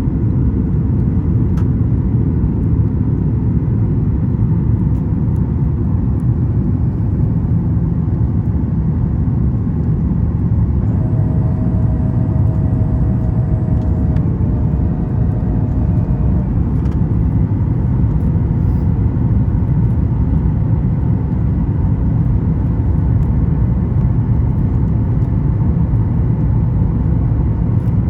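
Steady, loud cabin roar of a Boeing 737 MAX 9, its CFM LEAP-1B engines and the airflow heard from inside the passenger cabin. A faint two-note hum joins in about eleven seconds in and fades out some five seconds later.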